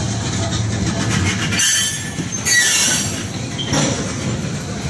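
Railroad tank cars of a slow freight train rolling past, their steel wheels running on the rails, with two short high wheel squeals in the middle.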